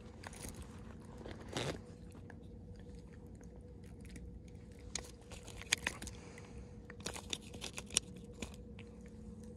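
Scattered sharp clicks and crunches on shore pebbles as a freshly landed fish is handled with a plastic fish lip-grip, most of them bunched in the second half, over a faint steady hum.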